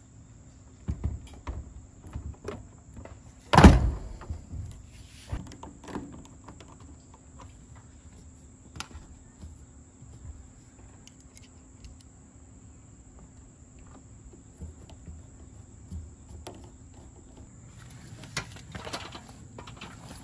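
Plastic knocks and clunks as a MaxxAir Deluxe roof fan housing is set down into its mounting flange on a van roof, with one loud thunk about three and a half seconds in. Scattered light clicks follow as the fan is screwed down.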